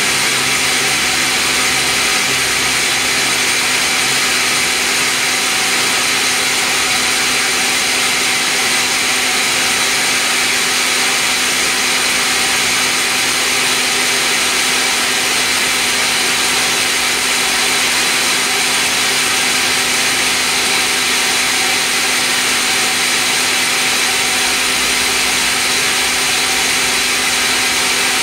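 Sawmill log band saw and its machinery running steadily: a loud, constant mechanical din with several steady high tones and no pauses.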